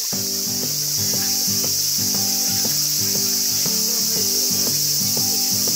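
A steady, high-pitched drone of summer insects, with background music of plucked, sustained notes that begins right at the start.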